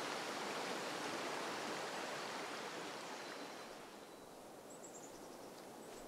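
Shallow forest stream running, a steady rush of water that fades down about four seconds in to quieter ambience with a few faint high chirps.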